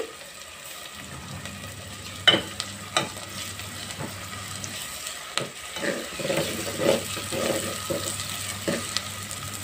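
Onions, green chillies and tomato frying in oil in a metal pot with a steady sizzle, while a metal spoon stirs and scrapes through them. There are two sharp clinks of the spoon against the pot a little after two seconds in, and the stirring gets busier in the second half.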